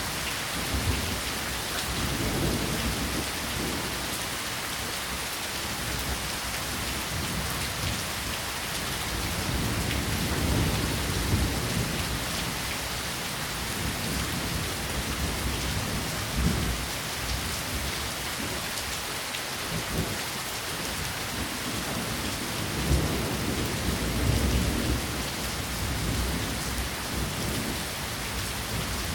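Steady rain falling, a dense even hiss of drops, with low rumbles swelling and fading several times.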